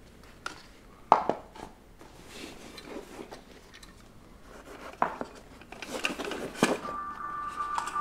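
Hard objects being handled and set down on a glass-topped table: a few sharp clinks and knocks with quieter rustling between. About seven seconds in, a steady drone of several held tones from background music begins.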